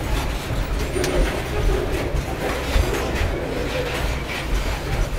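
Covered hopper cars of a freight train rolling past at close range: a steady heavy rumble of wheels on rail, with scattered clacks as the wheels cross rail joints.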